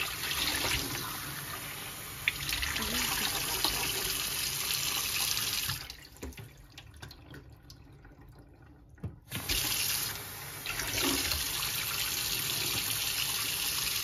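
Kitchen mixer tap running into a plastic cup and a stainless steel sink, a steady rush of water. About six seconds in the water sound drops away, and it comes back about three seconds later after a sharp click.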